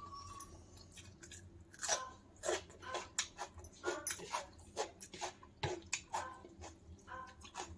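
Close-up eating sounds of a person chewing a mouthful of egg curry and rice: a run of irregular mouth clicks and smacks, about two a second, beginning about two seconds in.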